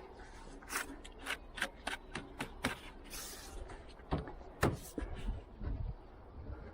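A run of sharp, irregular clicks and light metallic knocks, about two or three a second, from hand tools and parts being handled during a strut job, with a short hiss about three seconds in.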